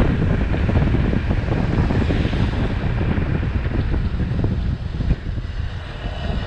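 Wind buffeting the microphone of a camera on a road bike descending fast, a steady, loud rumbling rush. It eases a little about five seconds in as the bike slows into a hairpin bend.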